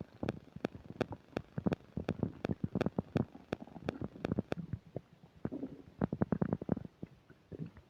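Human stomach gurgling and rumbling from upset digestion: a rapid, uneven run of short popping gurgles over low rumbles, thickest about six seconds in.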